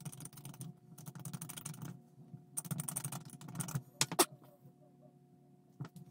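Small plastic scale-model parts being handled at a workbench: three bursts of rapid clicking and rattling about a second long each, then a sharp click a little after four seconds in, and a lighter click near the end.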